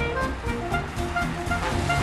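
Background music: a melody of short notes at changing pitches over a steady low bass.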